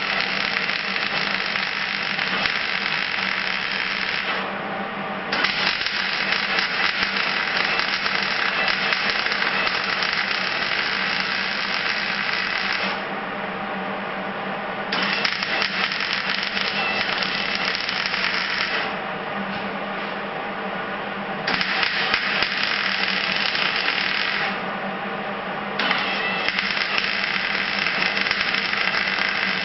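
MIG welder laying weld on sheet metal: a steady crackling sizzle in five runs of several seconds each, starting and stopping abruptly with short pauses between, over a constant low hum.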